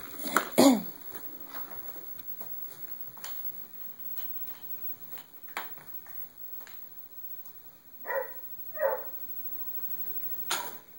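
Baby's wordless vocal sounds: a short whine falling in pitch just after the start, then two brief babbles about eight seconds in. A single sharp knock comes near the end, over faint room noise.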